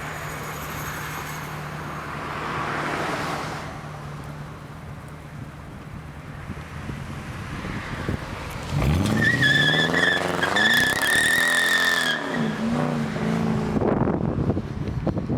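V8 engine of a 2005 Mustang GT with aftermarket headers and full exhaust, idling steadily, then revved up and down several times about nine seconds in. A high squeal runs alongside the revs for a few seconds.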